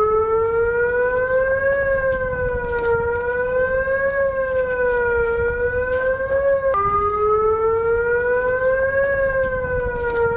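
Civil defence warning siren wailing, its pitch slowly rising and falling about every two and a half seconds. About two thirds of the way through the pitch drops abruptly and the rise starts over.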